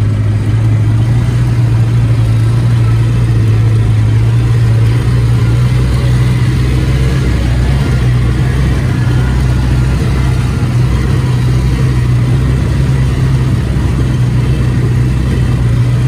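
Engine of a farm vehicle running steadily at a constant speed, close by, with a deep even drone.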